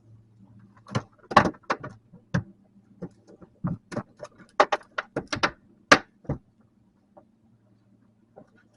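An irregular run of sharp knocks and rattles on a small fishing boat as a freshly caught Spanish mackerel and the jig it took are handled against the boat, over a faint steady low hum.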